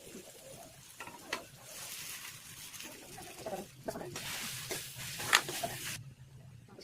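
Chow mein being stir-fried: a hissing sizzle from the pan in two stretches, stopping abruptly near the end, with stirring noises and a few sharp clinks of a utensil.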